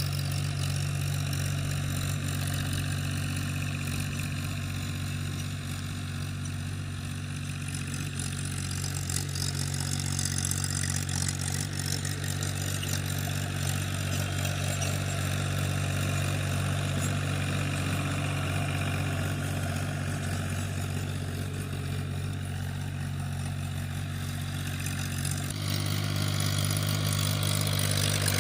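Tractor engine running steadily while pulling a plough through the field. The engine note shifts slightly near the end.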